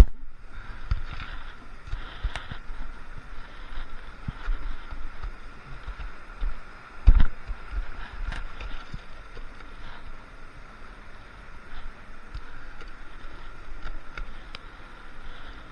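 Creek water running steadily, with wind and handling rumble on a body-worn action camera's microphone and scattered light knocks, the loudest a thump about seven seconds in.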